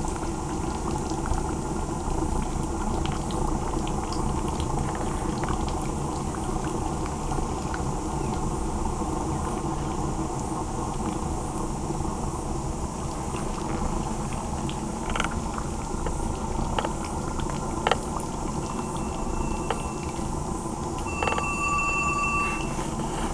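Drip-fed waste oil burner running: a steady rumble of the oil burning in its pot. Near the end a few short high steady tones come in over it.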